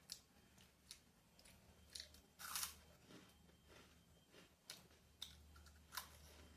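Faint chewing and crunching of crispy fried chilli potato, with scattered short crisp crunches and one louder, longer crunch about two and a half seconds in.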